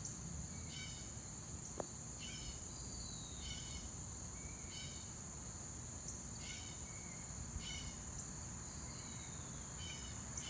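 Late-summer insect chorus: a steady high-pitched drone with a short chirping call repeating about every second and a half, and a couple of slow downward-sliding calls, over faint low outdoor background noise.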